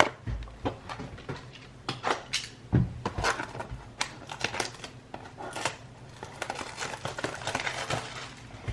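Hands handling and opening a cardboard trading-card blaster box: irregular taps, clicks and rustling scrapes of cardboard and wrapping.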